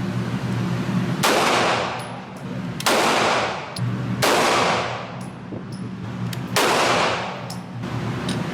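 Four single pistol shots from a Taurus G2C, fired at an uneven pace about one to two seconds apart, each with an echoing tail. Faint small clicks fall between the shots, over a steady low hum.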